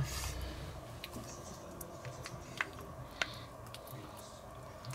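A squeeze bottle of curry sauce being pressed out into a bowl: a few faint, sharp clicks and ticks over a low hum.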